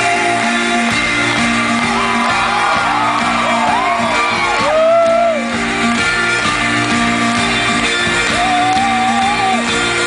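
Live rock band playing, with keyboards, electric guitar and drums. Over the band, voices slide up and down in pitch between about two and six seconds in, and a held high note comes near the end.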